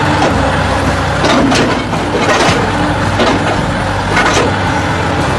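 Heavy construction machine's engine running steadily, with a series of clanks and knocks.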